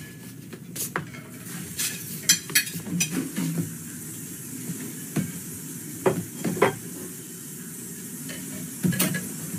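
Kitchen clatter: dishes and utensils clinking and knocking on a counter as separate sharp knocks, the loudest about two and six seconds in, over a steady faint hiss.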